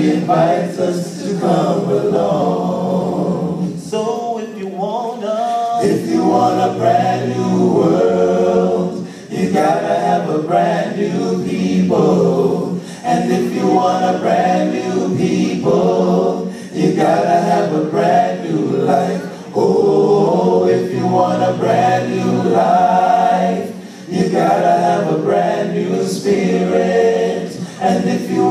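Male vocal group singing a cappella gospel in harmony, several voices into handheld microphones, in phrases with short breaks between them.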